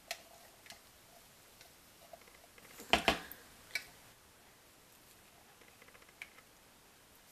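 Light clicks and knocks of a plastic measuring cup and silicone spatula against a plastic bowl as colorant is stirred into cold process soap batter, with one louder knock about three seconds in and a few faint ticks near the end.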